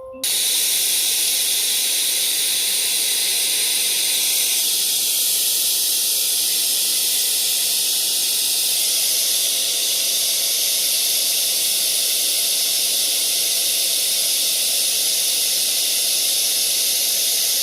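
Loud, steady hiss of static noise that cuts in abruptly and stops abruptly near the end.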